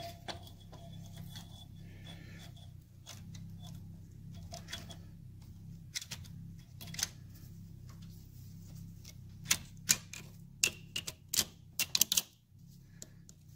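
Sharp metallic clicks and taps as a Triumph alternator stator is worked over its rotor and onto the mounting studs, a tight fit. A few scattered clicks come at first, then a quick run of louder sharp ones near the end.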